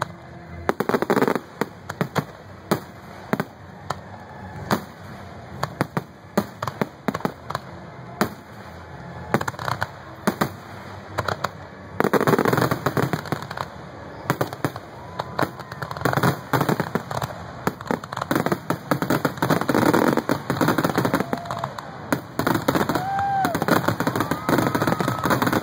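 Fireworks display: a run of sharp separate bangs, then from about halfway a dense crackling barrage with short whistling tones in the last few seconds.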